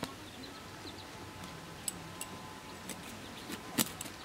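A small fish being cut and handled on a boti blade, heard as a few sharp clicks and taps over a quiet background. The loudest tap comes a little before the end.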